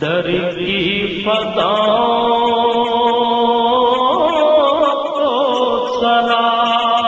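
Male voice chanting a naat with long held, ornamented notes that waver in pitch, over a steady low drone.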